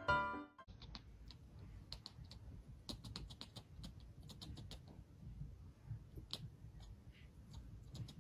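Piano music cuts off about half a second in. Then a kitten chattering: faint, irregular, sharp clicks.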